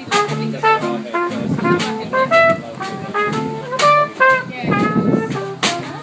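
Small jazz combo playing: a trumpet plays a quick melodic line of short notes over plucked upright double bass, electric guitar and a drum kit with cymbal strokes.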